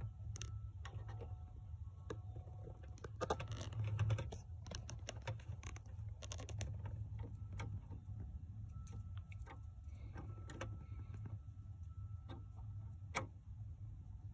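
Scattered light clicks and taps of a screw on a flexible-shaft driver bit being fiddled into a headlight mounting hole in the plastic housing, with a louder scraping rustle about three to four seconds in, over a low steady hum.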